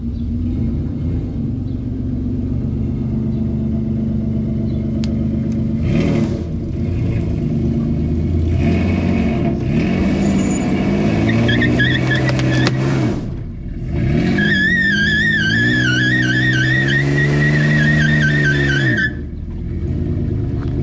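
An engine running and being revved up and down again and again. From about eleven seconds in, a high wavering whine rides over it, and both cut off sharply near the end.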